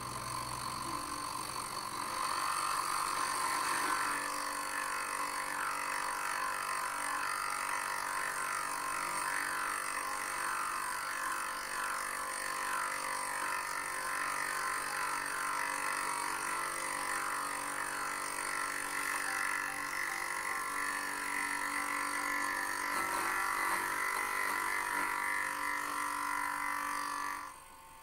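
Small milling machine running, its end mill cutting into a metal block with a steady, wavering machining noise. It stops about a second before the end.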